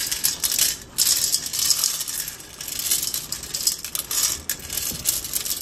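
Dry cat kibble poured from a scoop onto a stainless steel tray, the pieces rattling and pinging on the metal in a continuous patter, with a short pause about a second in.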